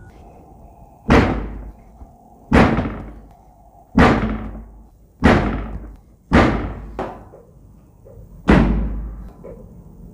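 Six heavy, sharp thuds about one to two seconds apart, each ringing briefly, with a couple of softer knocks between them: blows of a chiropractic spinal adjustment.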